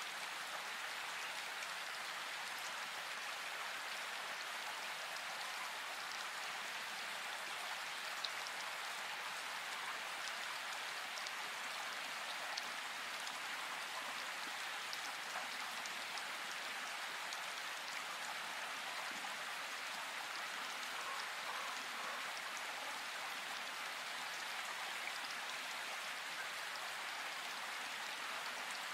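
Steady rain: an even hiss with faint scattered drop ticks.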